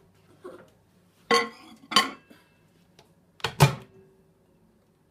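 A few sharp clatters and knocks of a dish and the door at a Sharp microwave oven, some with a brief ring. The last and loudest is a heavier thud about three and a half seconds in as the door is shut.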